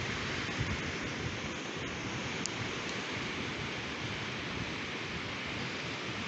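Steady wash of ocean surf on a sandy beach, mixed with wind.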